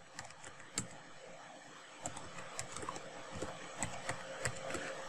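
Typing on a computer keyboard, entering a username and password: scattered keystroke clicks, a few at first and more frequent from about two seconds in.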